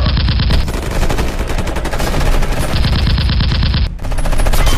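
Automatic-gunfire sound effect, a rapid continuous stream of shots, dubbed over toy blasters, with a brief break a little before the end.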